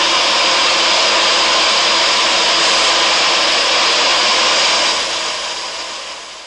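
A steady, loud rushing noise with no clear pitch, fading away over about the last second and a half.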